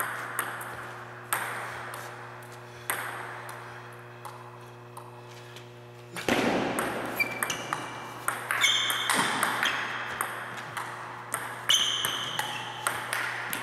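Table tennis ball clicking off paddles and the table: a few widely spaced hits, then a quicker rally from about six seconds in, with short high squeaks among the hits.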